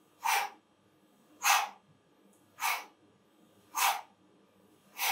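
A person's sharp, forceful exhalations in a steady rhythm, one about every 1.2 seconds, the working breaths of someone doing a repeated exercise.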